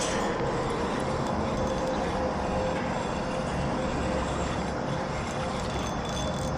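Steady outdoor background rumble and hiss with no distinct events, faintly carrying a steady tone.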